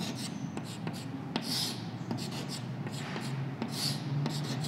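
Chalk writing on a chalkboard: many short sharp taps as the chalk meets the board, with two longer scraping strokes, one near the middle and one near the end, as arrows are drawn.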